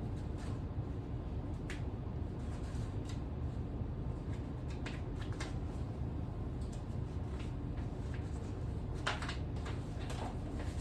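Pages of a paper instruction booklet being turned and handled: light, scattered rustles and clicks over a steady low room hum.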